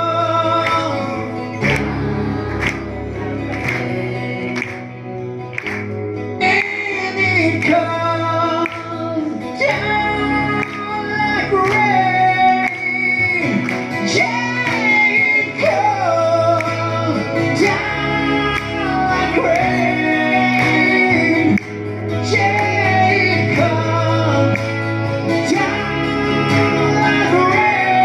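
Two acoustic guitars strummed in a steady rhythm while voices sing the melody, played live in a large hall.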